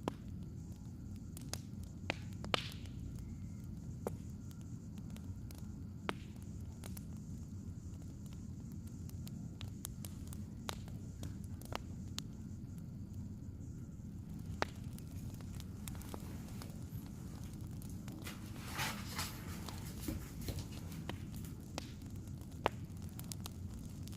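Crackling wood fire: scattered sharp pops and snaps over a low, steady rumble, with a brief rush of noise about three-quarters of the way through.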